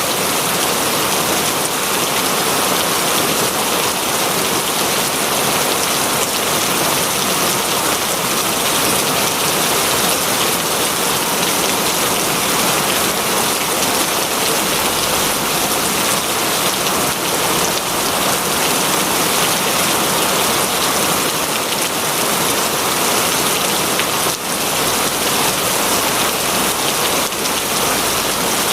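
Heavy rain falling steadily, a dense hiss of many drops striking a surface.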